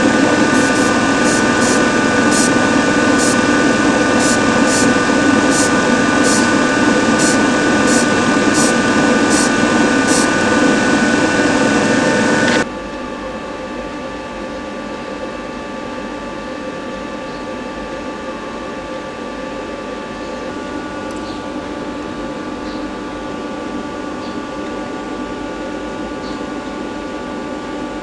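Steady mechanical hum with several fixed tones, loud at first and then cutting down sharply to a quieter hum about halfway through.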